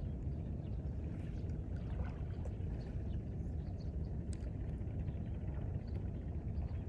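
Steady low rumble of harbour-shore ambience, with faint small ticks and water sounds above it.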